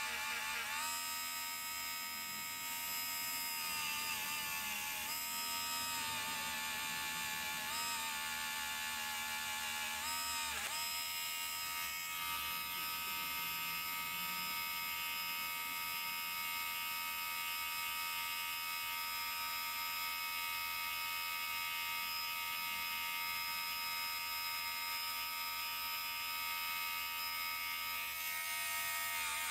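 Harbor Freight rotary tool spinning a small abrasive polishing wheel against a gold grill to polish out scratches. Its motor whine dips briefly in pitch about five times in the first ten seconds, then runs steadily.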